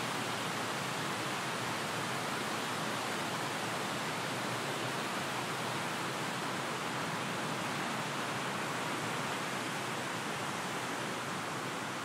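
Steady, even hiss with no distinct sounds in it.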